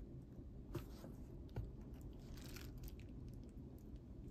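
Faint handling noises: two small clicks, then a brief crinkly rustle about halfway through, as a piece of jewelry and its wrapping are handled and turned over, over a low steady room hum.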